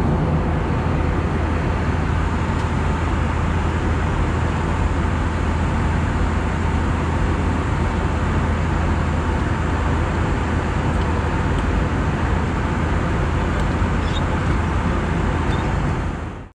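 Steady cabin noise of an Airbus A320 in flight: a constant rush of airflow and engine noise with a low hum underneath, unchanging throughout.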